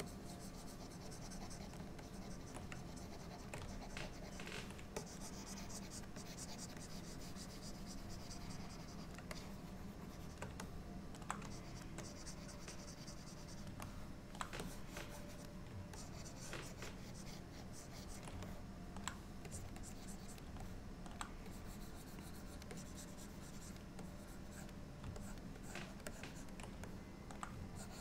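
Faint scratching of a pen stylus drawn across a graphics tablet in short strokes, with scattered clicks, over a low steady hum.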